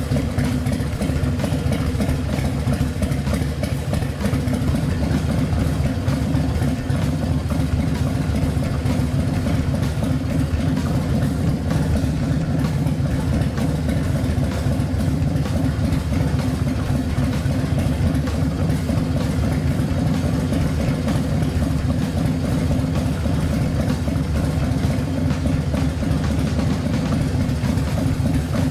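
Harley-Davidson FXR's Evolution V-twin engine idling steadily, with an even, unchanging beat. The engine is running so that its oil pump pushes the old oil out through a filter-mount flushing adapter.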